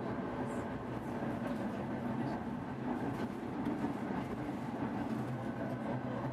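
Steady low hum and whir from a tram standing still, its onboard electrical and ventilation equipment running.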